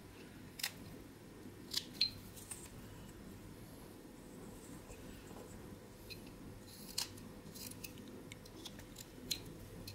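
Whittling knife blade making stop cuts into koa wood: a handful of short, sharp snicks at uneven intervals, over a faint steady hum.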